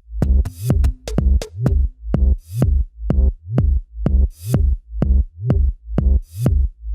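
Electronic dance music with a steady drum-machine beat: regular deep kick drums with bright cymbal hits over them.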